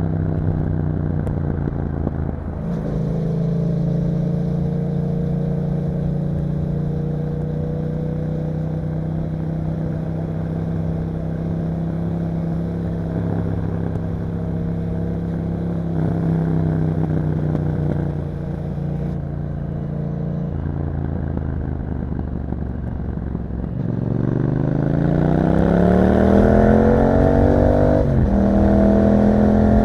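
A 2021 Yamaha MT-07's parallel-twin engine running through an Akrapovic exhaust, first at steady cruising revs. Near the end it revs up in a long rising pitch, drops briefly at an upshift and pulls again.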